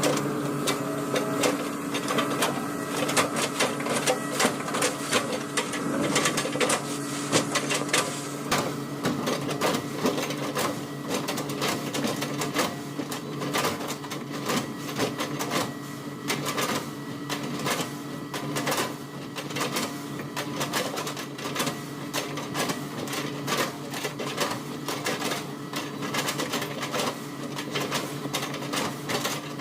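Hitachi excavator's diesel engine running steadily under load, with rapid irregular clicks and cracks as an oil palm trunk is chipped apart.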